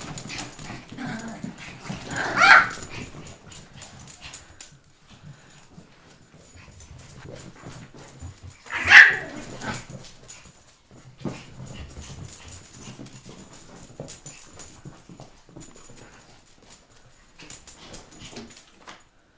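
A dog barking sharply twice, about six seconds apart, excited by a bird indoors, with faint clicks and scuffles in between.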